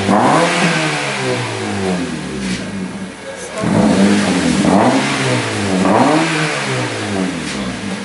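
Honda Civic four-cylinder engine revved in place through a freshly fitted straight-through exhaust with the rear silencer (backbox) deleted. One rev falls away over the first three seconds, then the engine is blipped again, with peaks about a second apart, and drops back near the end.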